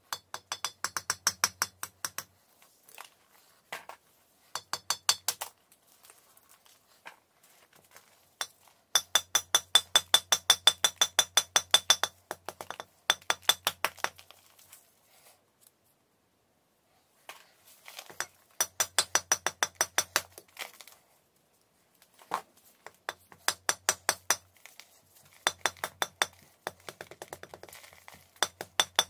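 Small metal-headed hammer tapping a large block of chalk, chipping off flakes: runs of quick, sharp taps, several a second, broken by short pauses.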